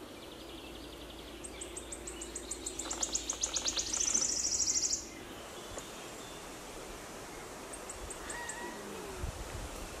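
Wood warbler singing: a run of high ticking notes that speed up and grow louder, running into a fast shivering trill that stops sharply about five seconds in. A few faint ticks follow later.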